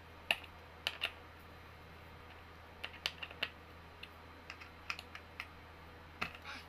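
Small office-chair parts and hardware clicking and tapping as they are handled by hand on a table: about fifteen light, irregular clicks, in clusters.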